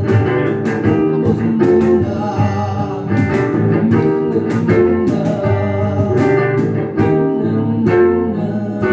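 Music led by guitar with singing and a steady beat.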